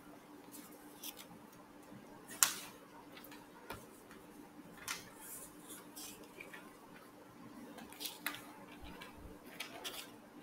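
Scattered faint clicks and taps, one sharper click about two and a half seconds in, over a steady low hum.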